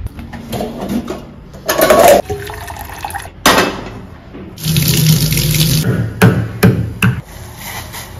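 Water pouring into a small stainless-steel saucepan for about a second, amid kitchen handling noises: a brief rush and a sharp knock before it, and three sharp clicks just after.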